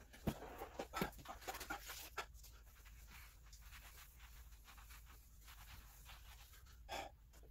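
Footsteps and a few knocks as a person kneels on a kitchen floor, then faint scrubbing of the floor with a sponge, with a short louder scrape near the end.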